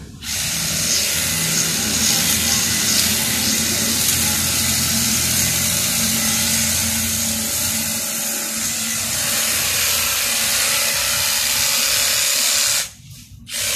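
Makita hedge trimmer running steadily while its blades cut through a low leafy shrub; it cuts off near the end, then starts again.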